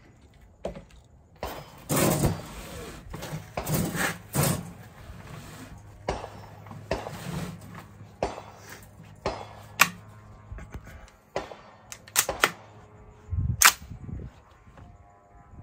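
AR-15 rifle with a 13.9-inch Ballistic Advantage barrel firing 62-grain green-tip 5.56 rounds: a series of sharp shots, one to two seconds apart, each with a short echo.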